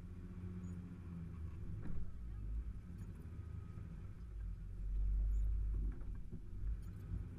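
Off-road vehicle's engine running at low revs as it crawls over uneven forest ground, with a few knocks from the body and suspension and a louder low rumble about five seconds in.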